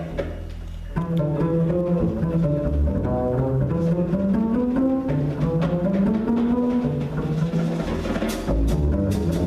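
Jazz band playing live with the bass to the fore: a low sustained note for the first second, then a moving line with a smooth glide in pitch through the middle, and crisp cymbal strokes near the end.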